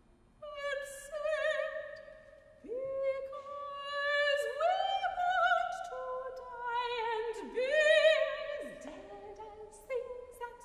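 A soprano singing sustained notes with vibrato, accompanied by two cellos. Several notes slide upward in pitch into place, and the voices overlap.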